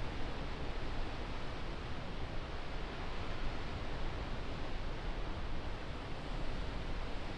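Steady wind noise across the microphone: a rushing hiss over a fluctuating low rumble.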